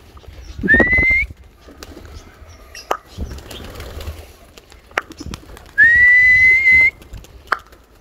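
A man whistling twice, loud and shrill, to drive a flock of domestic pigeons up into flight. The first whistle is short, near the start; the second, about a second long, comes past the middle. Each rises a little, then holds one steady pitch. Faint wing flaps and clatter come in between.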